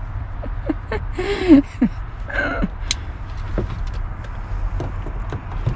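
Scattered clicks, knocks and rattles of a plastic Subaru timing cover being worked loose and handled on the engine, with a short squeal about a second and a half in as the loudest moment. A steady low rumble runs underneath.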